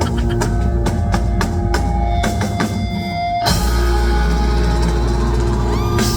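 Rock band music with drum kit and guitar: a run of drum hits over held notes, then about three and a half seconds in, a sustained section with deep bass.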